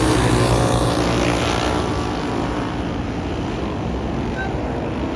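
Several race car engines running hard as the field laps the track. The sound is loudest in the first two seconds, then eases a little.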